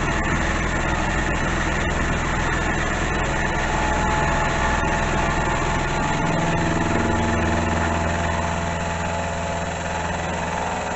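Small bench milling machine running steadily with the cutter in the work, while a windscreen-wiper-motor power feed drives the table. The low hum changes pitch about six seconds in.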